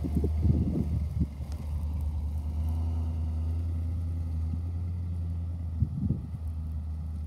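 Pickup truck engine running steadily as the truck pulls away across a field with its rear wheels spinning in the dirt. Wind gusts on the microphone in the first second or so.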